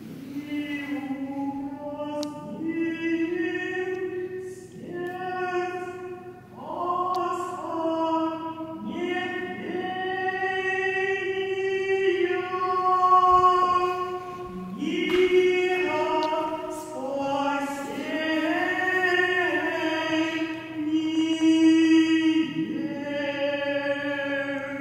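Voices singing a slow Orthodox church chant, a choir with women's voices, in long held notes that step from pitch to pitch.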